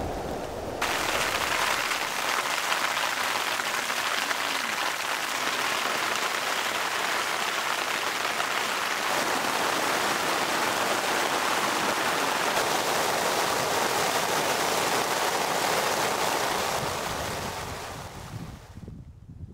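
Steady rain, a dense even hiss that starts suddenly about a second in and fades away near the end, leaving faint wind.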